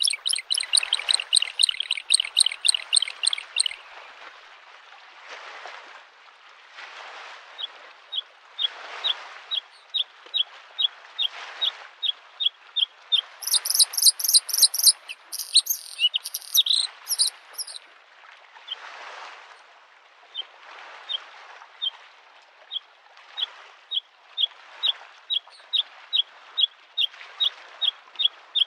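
Bluethroat singing: loud, fast, high trilled phrases at the start and again about halfway through, with a steady series of short high ticking notes about twice a second in between. Under it, small lake waves lap the shore in soft, regular swells every second or two.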